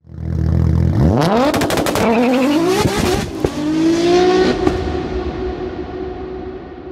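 Car engine revving hard and accelerating through the gears, its pitch climbing three times with sharp cracks early on, then holding and fading away.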